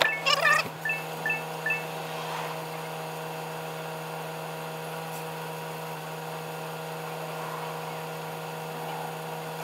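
Tow truck running with a steady low mechanical hum. A few short high chirps sound in the first two seconds.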